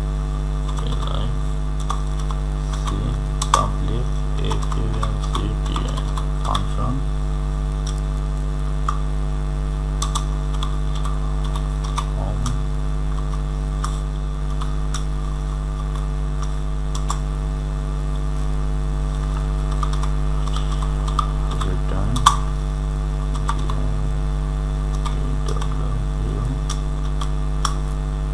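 Steady electrical mains hum, with scattered computer keyboard keystrokes as code is typed; two keystrokes stand out louder, one about three and a half seconds in and one past the twenty-second mark.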